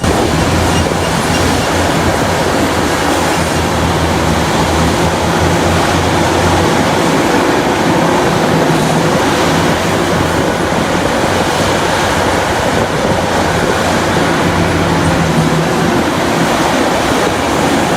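Heavy diesel mining machinery running: a steady low engine drone under a dense, continuous rumbling noise.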